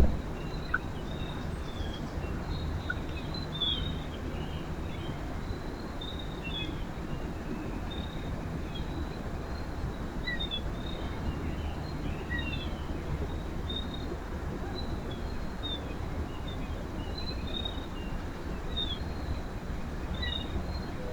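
Small birds chirping: short, high chips and calls scattered throughout, over a steady low background rumble.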